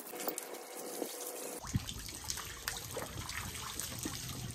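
Water running from a garden hose and splashing onto a horse's wet coat during its bath, with a few small knocks.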